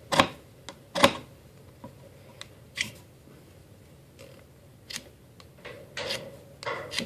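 A steel striker scraped down a magnesium and ferro rod fire starter, about six short, sharp scrapes a second or so apart, the first two the loudest. The sparks are not lighting the cotton-ball tinder.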